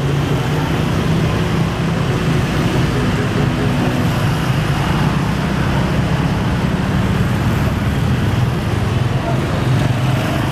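Large diesel bus engine running steadily with a low hum, amid traffic noise and background voices.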